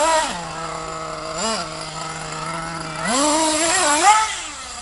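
Small combustion engine of an RC car idling, then revving in short blips: a rise and fall right at the start, a quick blip about a second and a half in, and a longer rev from about three seconds in to just after four.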